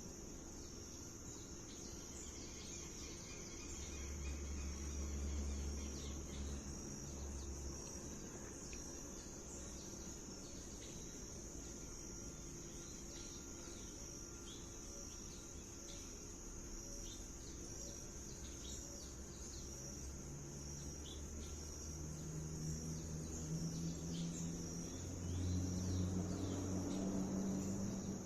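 A steady high-pitched insect trill, like crickets, runs throughout, with many short bird chirps scattered over it. A low rumble swells twice, about five seconds in and again near the end.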